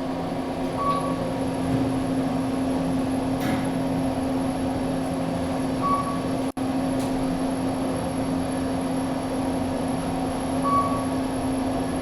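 Kone EcoDisc elevator cab in motion: a steady hum of the car travelling, with a short high beep about every five seconds. The sound cuts out for an instant about halfway through.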